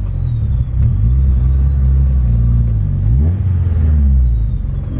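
Nissan S13 drift car's engine heard from inside the cabin, running at low revs as the car creeps forward. The revs rise briefly a little past halfway, then settle back.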